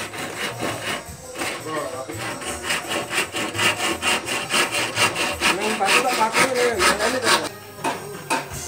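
Hand saw cutting through a bamboo pole in quick back-and-forth strokes, growing quieter near the end.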